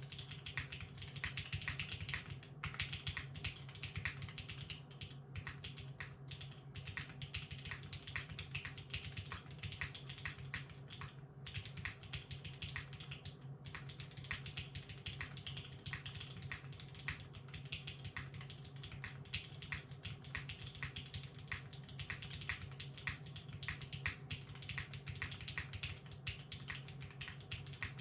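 Steady, fast typing on a 60% custom mechanical keyboard with broken-in vintage Cherry MX Black linear switches in an aluminium plate, under GMK doubleshot keycaps, with a few short pauses.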